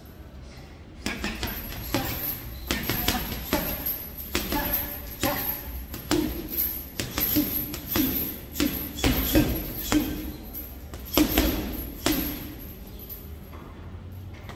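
Boxing gloves striking a hanging punching bag in quick, irregular combinations, with the bag's chains jingling. The punches start about a second in and stop shortly before the end.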